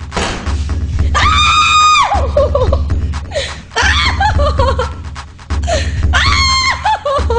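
A female voice screaming: two long, high screams, each held for about a second and then dropping in pitch, with broken, wavering cries between them.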